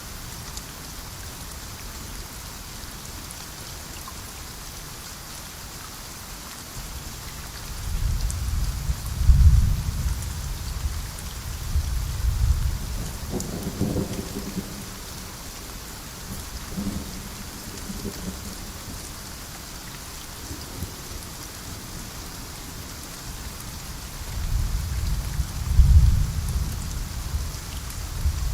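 Steady rainfall hissing, with two rolls of low thunder: one about a third of the way in, lasting several seconds, and another building near the end.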